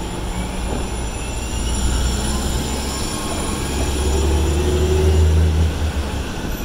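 City transit bus turning past at close range, its engine droning low. The drone swells to its loudest about five seconds in, then drops away.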